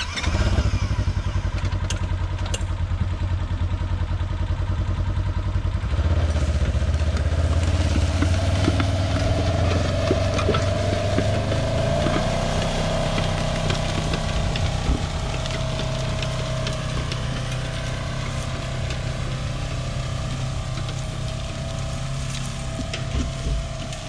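Polaris Ranger XP UTV engine running under load as it pulls a disc harrow through soil. It comes in sharply as the vehicle pulls off, grows louder about six seconds in, and changes note about halfway through.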